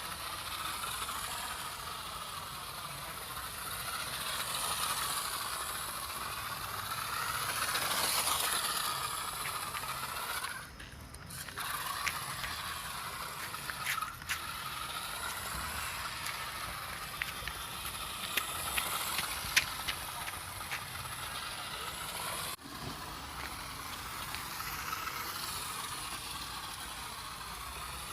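Toy RC car's small electric motor and plastic gears whirring, rising and falling in pitch as it speeds up and slows, with scattered clicks and rattles. It cuts out briefly twice, about eleven seconds in and again near twenty-three seconds.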